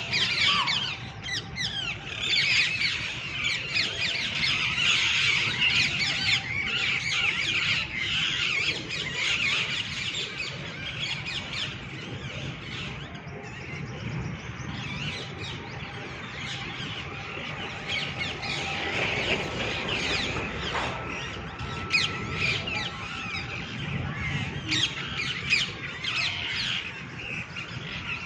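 A flock of green, red-beaked parrots screeching and chirping in a treetop, with many shrill calls overlapping, densest in the first dozen seconds and thinner after.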